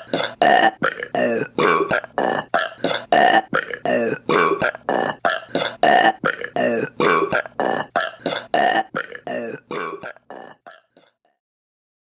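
A rapid run of short, pitched female burps, about three a second, growing fainter near the end and stopping about eleven seconds in.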